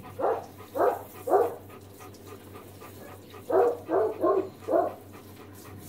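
A dog barking in short single barks: three in quick succession, a pause of about two seconds, then four more.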